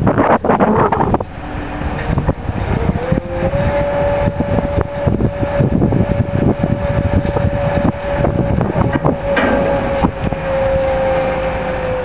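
Mobile crane working a lift: about three seconds in its drive runs up to a steady whine that holds and sags slightly near the end, over wind buffeting the microphone in gusts.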